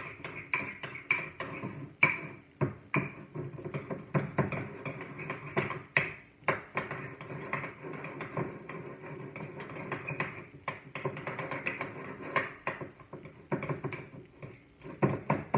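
A spoon stirring and mashing soft butter in a ceramic bowl: a steady run of irregular clicks and scrapes of the spoon against the bowl, with a few sharper knocks.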